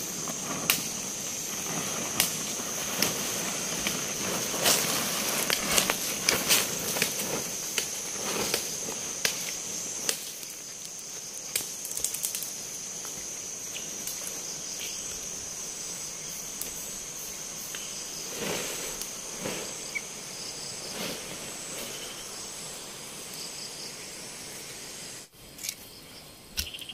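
Dusk insect chorus: a steady, high-pitched drone with scattered clicks and knocks, most of them in the first half. The whole sound drops away abruptly near the end.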